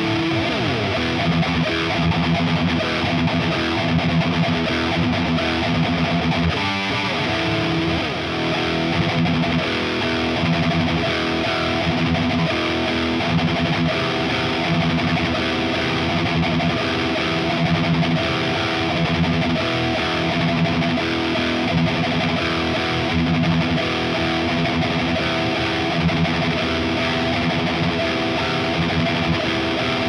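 1987 Charvel Model 6 electric guitar played through a modded 1978 Marshall Super Bass head and a Marshall Mode Four 4x12 cab with Celestion G12K-100 speakers, riffing with heavy distortion. There are two downward swoops in pitch, one at the start and one about seven seconds in.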